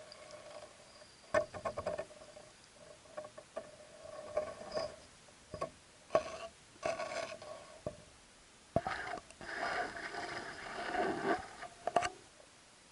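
Irregular clicks, knocks and scraping heard through an underwater action camera's waterproof housing, with a dense stretch of scraping and rattling about nine to twelve seconds in as the camera moves.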